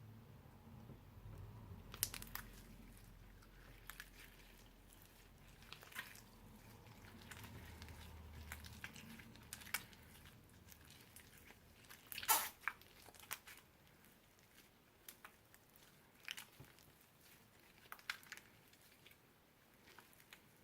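Slime mixed with magic clay being worked by hand, giving faint, irregular clicks and pops. The loudest pop comes about twelve seconds in.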